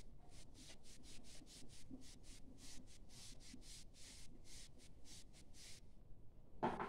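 Whiteboard duster wiped back and forth across a whiteboard in quick, faint, even strokes, about three or four a second, stopping a little before the end. A short louder sound follows near the end.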